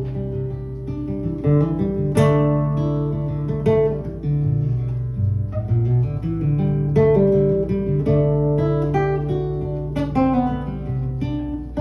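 Acoustic guitar playing an instrumental passage, chords struck every second or two and left ringing, with no singing.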